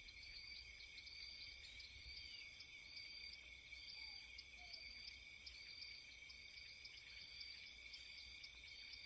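Faint night-time insect chorus, with cricket-like chirps repeating at a steady pace over a continuous high trilling and a low rumble.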